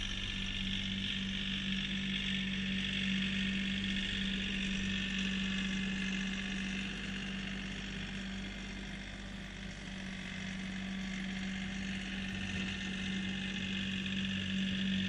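Kioti CK3510 compact tractor's diesel engine running steadily at a constant speed as it pushes snow, with a steady hum. It grows slightly fainter a little past the middle as the tractor moves farther off, then picks up again.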